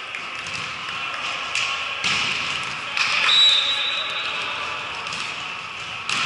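Echoing gymnasium with indistinct chatter from players and onlookers; a volleyball thuds on the floor about two seconds in. Just after the midpoint a referee's whistle gives one steady blast of about a second, the loudest sound here.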